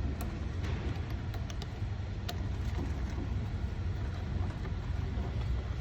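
A few light clicks and taps from hand work on intake piping and hose clamps, over a steady low rumble.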